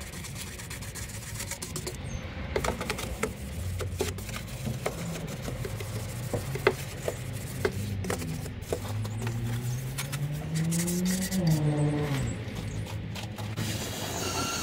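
Rubbing and scraping with many short, sharp clicks. In the second half a low hum glides up in pitch and then back down.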